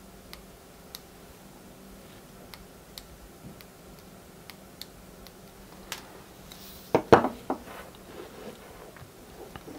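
Faint, sharp clicks of small momentary switches being pressed in a Graflex 2.0 saber clamp, several times over the first few seconds. About seven seconds in, a quick cluster of louder knocks, the loudest sound here, as the metal saber and parts are handled and set down on a wooden workbench.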